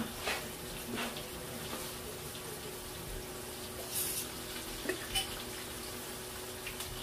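Fish and fries frying in hot oil on the stovetop, a steady sizzle and bubbling, with a few light clicks and clinks as a bottle is handled and poured into a small glass.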